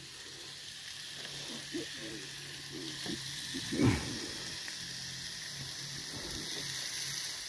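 Stuffed hamburger patty sizzling on a George Foreman electric contact grill: a steady frying hiss over a low hum, with one brief louder sound about four seconds in.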